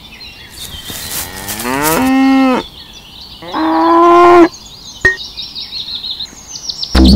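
A cow mooing twice: a first moo that rises and then holds, and a second shorter, steady one. Faint bird chirps sound behind them, a short click comes about five seconds in, and music starts right at the end.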